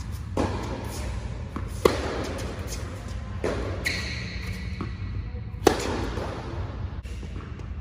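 Tennis rally on an indoor hard court: sharp racket strikes and ball bounces every one to two seconds, each echoing in the hall, over a steady low hum. The sharpest strike comes just before the end.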